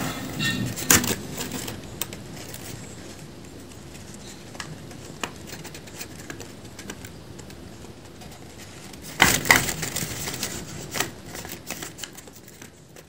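Paper crinkling and rustling as a folded paper dragon puppet is worked by hand, with two louder flurries of crackling: one at the start and one about nine seconds in.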